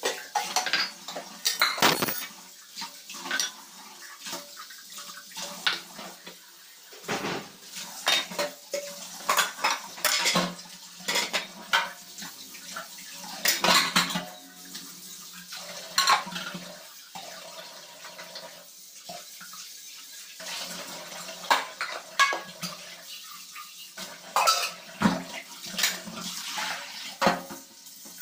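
Stainless steel pots, plates and spoons clinking and clattering irregularly as dishes are washed by hand in a steel sink, over a steadily running tap.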